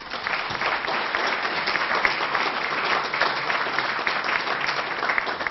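Audience applause closing a lecture: many people clapping steadily, starting suddenly and beginning to fade near the end.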